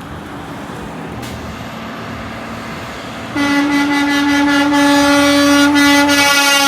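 Passing vacuum truck's engine and road noise, then about three seconds in its air horn blows one long, loud, steady blast.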